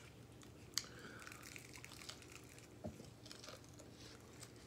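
Faint eating sounds of crispy fried chicken being bitten and chewed: scattered small crackles of the crust and mouth clicks, with one sharper click about a second in.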